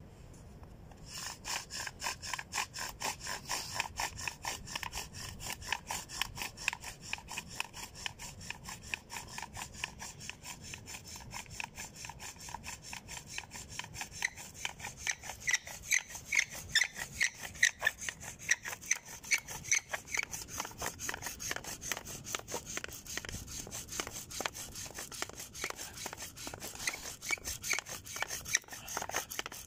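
Wooden bow drill in use: the spindle is sawed back and forth by the bow, rubbing and squeaking in the hearth board in quick, even strokes that start about a second in. The squeak grows sharper in the second half, and by the end the hearth is smoking as the friction builds toward an ember.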